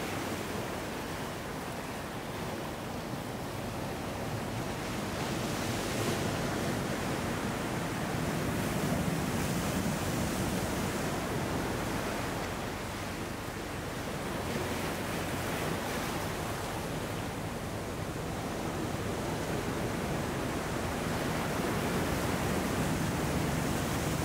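Ocean surf washing in over sand and around rocks: a steady rush of breaking waves that swells and eases slowly.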